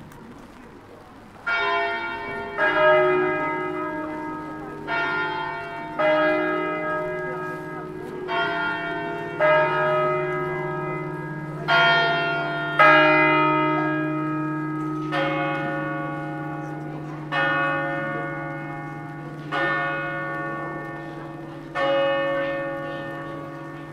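Church tower bells ringing: four two-note pairs of strikes, then single strikes on a lower-sounding bell four times, about two seconds apart, each note ringing on over a steady low hum. The pattern is like a clock chime followed by the hour strokes.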